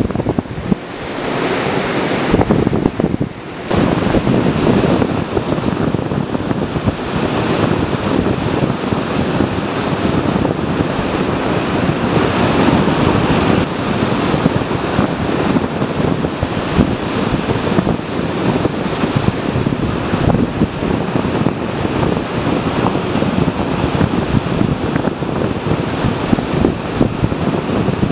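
Surf washing on a sandy beach with wind buffeting the microphone: a steady, loud wash of noise, with a short lull about three and a half seconds in.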